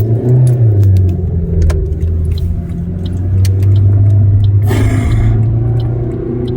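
Car engine and road noise heard from inside the cabin while driving, a steady low drone whose pitch rises briefly near the start and then settles. A short whoosh about five seconds in, with light clicks and rattles scattered throughout.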